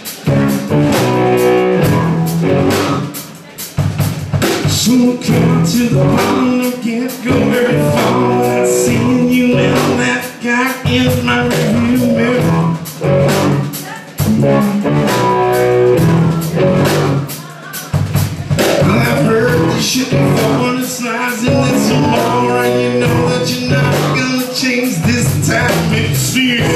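Live rock band playing at full volume: drum kit, electric guitar and bass guitar, the drums hitting in a steady beat with a few short breaks.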